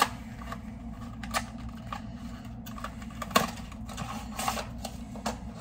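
Plastic wrapping of a Happy Meal toy being torn open and handled: scattered crinkles and sharp clicks, the loudest about three and a half seconds in.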